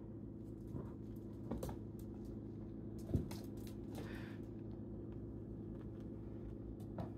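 Kittens tussling on a hardwood floor: scattered soft taps and scuffles of paws and bodies, with one louder thump about three seconds in, over a steady low hum.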